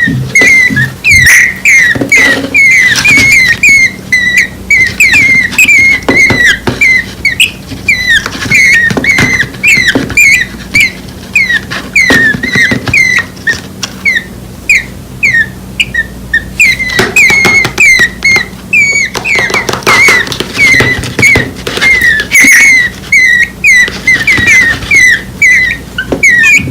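Two nestling birds less than a week old giving rapid, high begging chirps, several a second without a break: young birds calling for the parent to feed them.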